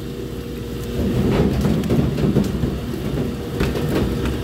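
Steady low rumble of the tender's fish-handling machinery, with water splashing and salmon sliding on a stainless steel sorting table. There are a few sharp knocks of fish against steel, one about a second and a half in and two near the end.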